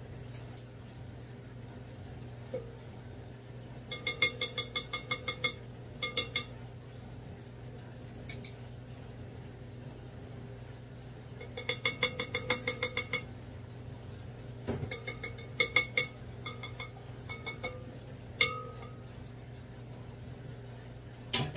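Metal measuring spoon tapping against the rim of a glass mixing bowl while measuring molasses, in several quick runs of ringing clinks, about eight a second, with single clinks between. A steady low hum runs underneath.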